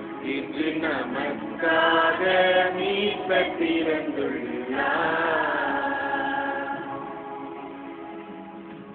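Small group of women singing a Tamil Christmas hymn together in an amateur choir practice. The singing is loudest in the first few seconds, then settles into a long held note from about five seconds in that slowly fades.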